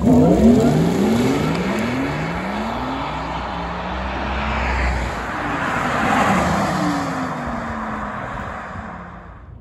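Porsche Taycan GTS launching hard from a standstill: its electric drive whines in several tones that climb steadily in pitch, over tyre and road roar, as it pulls away. Around six seconds in, a second swell of road noise comes with a falling tone, and the sound fades near the end.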